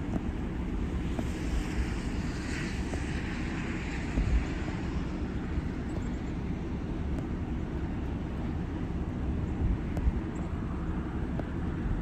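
A steady low outdoor rumble, with a broad hiss that swells and fades between about one and four seconds in.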